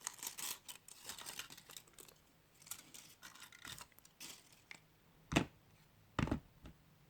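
Foil wrapper of a Kinder Surprise egg crinkling and tearing as it is peeled off, then a few scattered rustles and two sharp clicks about a second apart near the end.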